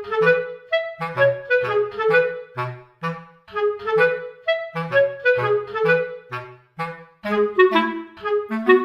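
Instrumental background music: a melody of short notes over a bass line.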